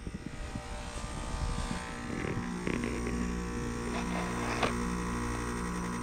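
Heat pump outdoor unit coming out of a defrost cycle: a rushing hiss, then about two and a half seconds in a steady low hum with a pulsing tone starts and keeps going, as the outdoor fan runs and the unit begins to steam.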